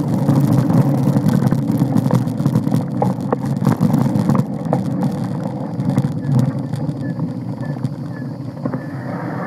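Mountain bike riding over a dirt trail: a loud, steady rumble of the tyres on rough ground, with many small clicks and knocks throughout, easing slightly in the second half.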